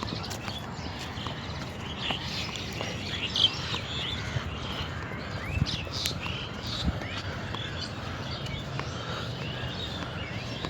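Birds chirping in short, scattered calls over steady outdoor background noise, with a few sharp clicks.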